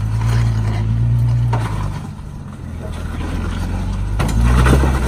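Willys jeep engine pulling under load as it crawls up a rock ledge, easing off about two seconds in and revving up again near the end.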